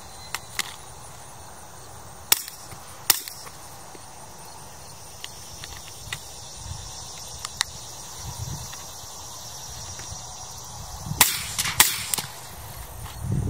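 Sharp clicks and cracks over a low outdoor rumble. There are a few single snaps in the first few seconds, fainter ticks through the middle, and a quick cluster of louder cracks near the end.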